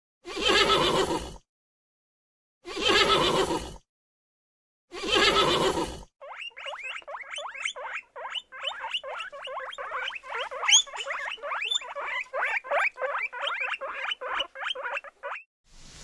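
A horse calling three times, each call about a second long with dead silence between them. From about six seconds in, guinea pigs squeak in a fast, unbroken run of short chirps, several a second, until just before the end.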